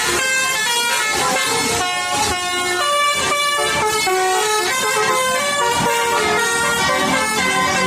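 Basuri telolet bus air horns sounding a tune: several horn tones at once, stepping from note to note without a break.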